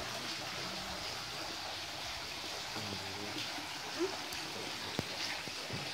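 Steady rush of a shallow stream running over a rocky bed.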